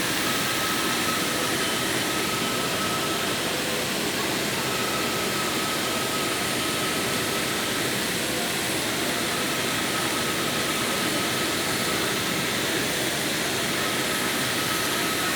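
Automatic GTAW (TIG) welding: a steady hissing noise that runs unbroken, with a faint high tone coming and going.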